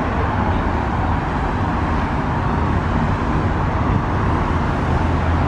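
Steady outdoor background noise: a constant low rumble with a hiss over it, loud and unchanging.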